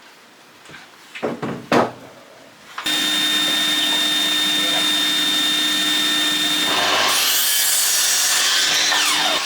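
A few wooden knocks as timber is handled, then about three seconds in a power saw starts and runs steadily. From about seven seconds in the sound grows rougher as the blade cuts through 4x2 timber.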